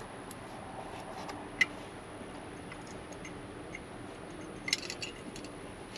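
Faint, scattered metallic clicks and ticks of small screws being started by hand into a steering-wheel adapter, with a single sharper click about a second and a half in and a quick cluster near the end.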